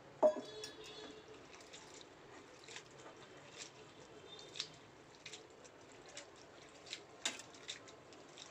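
A hand swishing and squeezing flattened rice (poha) in water in a steel plate, giving faint scattered wet splashes and squelches. A single ringing metallic clink comes about a quarter second in and is the loudest sound.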